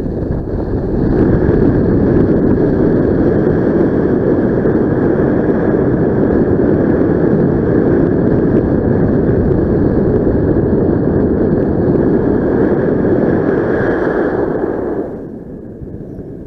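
Strong wind rushing over a helmet camera's microphone in paraglider flight, a steady loud buffeting that dies down about a second before the end.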